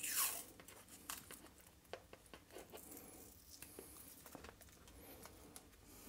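PET cloth harness tape being pulled off its roll and wound tight around a wire bundle: a short tearing rasp at the start, then faint rustling and small clicks as the tape is wrapped.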